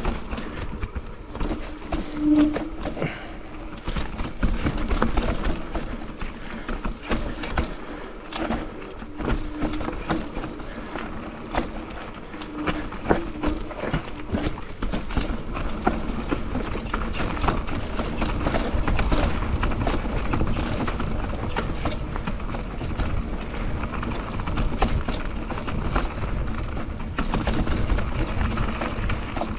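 Mountain bike descending a steep, rough trail at speed: tyres, frame and components knocking and rattling over roots and rocks in a dense, irregular clatter, over a steady low rumble of wind noise on the action camera's microphone.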